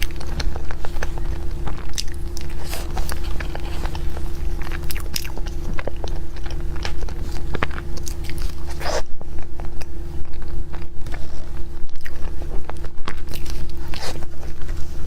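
Close-miked biting and chewing of a lava cake: many small wet clicks and crisp crunches from the mouth, over a steady low hum.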